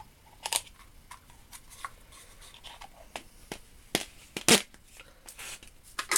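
Handling noises from a small metal tool and its packaging: scattered light clicks and rustling, with two sharper clicks about four seconds in.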